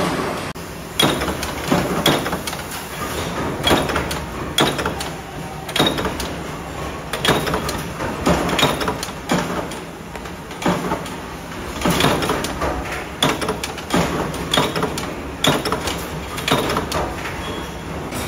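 Mechanical punch presses stamping sheet metal: repeated sharp metallic strikes at an uneven rhythm, roughly one a second, over a steady machine noise.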